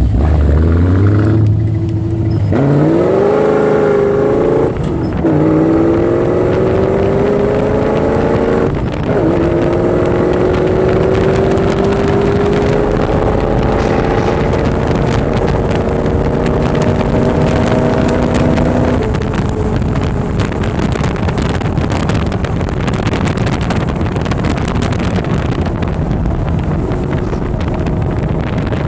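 Lexus V8 engine of an off-road vehicle accelerating hard up through the gears: the pitch climbs, drops briefly at each of three gear changes, then rises slowly in one long pull. About two-thirds of the way through the engine note fades back, leaving mostly wind and road noise.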